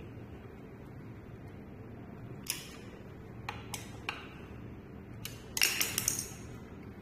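Light metallic clinks and taps, a handful spread a second or so apart, then a short burst of clattering near the end, like small metal parts or tools knocking together. A low steady hum lies underneath.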